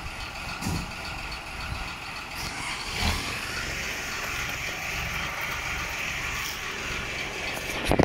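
Steady drone of a running engine or machinery, with a dull knock about three seconds in and another near the end.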